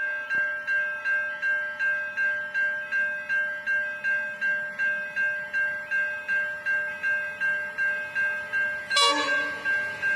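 Level-crossing warning bell ringing steadily, about three strokes a second, signalling an approaching train. A short, louder burst sounds about nine seconds in.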